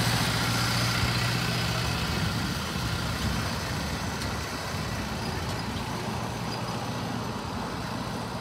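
Miniature diesel locomotive's engine running as it pulls away along the track, fading steadily into the distance.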